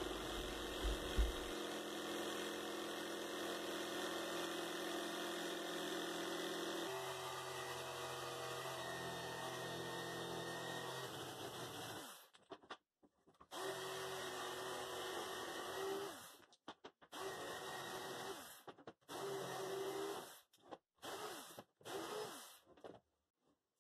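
Electric jigsaw running steadily as it cuts out the middle of a slot in a wooden table leg, its tone changing about seven seconds in. Over the second half it stops and starts again several times.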